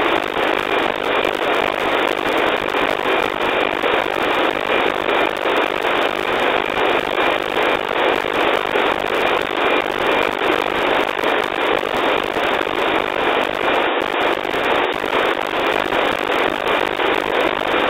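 NOAA 15 weather satellite's APT image signal, received on an RTL-SDR and FM-demodulated: a steady 2.4 kHz tone buried in hiss, with a regular ticking from the image-line sync pulses.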